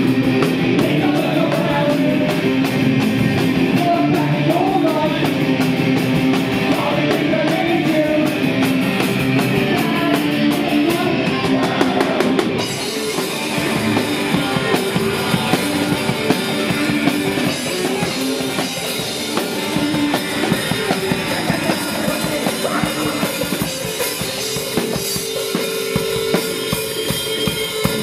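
Live rock band playing, with distorted electric guitars over a drum kit. The sound changes abruptly about halfway through.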